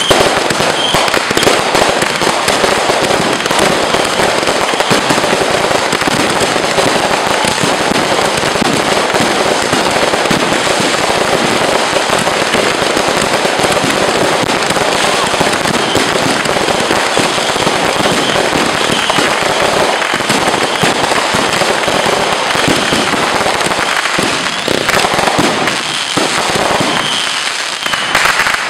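Fireworks going off in a dense, continuous barrage of bangs and crackling, thinning out with a few gaps near the end.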